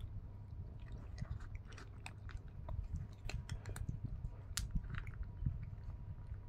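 Cats eating dry kibble from a bowl: a quick, irregular run of crisp crunches as they chew.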